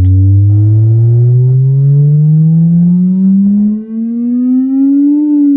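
JBL Charge 5 Bluetooth speaker playing a bass-test sine sweep: a loud tone with overtones above it rising steadily in pitch from deep bass toward the low midrange, then dipping slightly near the end.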